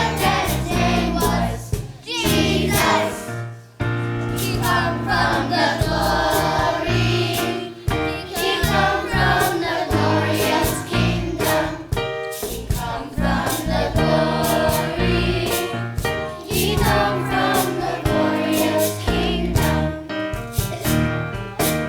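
Choir singing a Christian song with a full band accompaniment: steady bass and drum beat under the voices.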